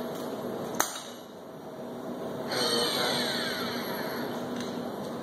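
Motoman MH5L industrial robot arm's servo drives whining as the arm moves, with pitch sweeps that rise and fall as it speeds up and slows down, louder from about halfway through. A sharp click about a second in.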